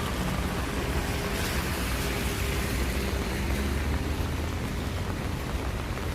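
Steady rain falling, with the low hum of a vehicle engine underneath that fades about two-thirds of the way through.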